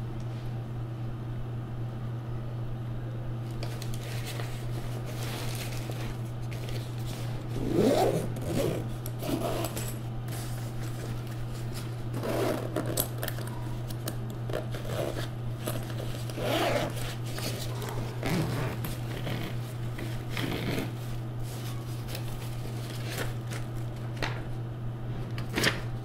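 Hands handling packaging: scattered rustles, scrapes and small clicks, some louder than others, over a steady low hum.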